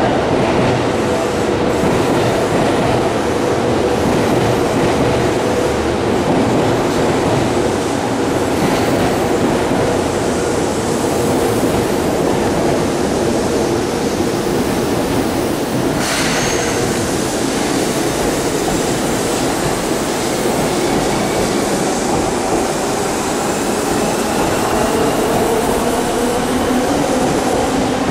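Seibu 10000 series limited express electric train running slowly through a station platform, with a steady rumble and hum. Near the end it pulls away, and its motor whine rises in pitch as it gathers speed.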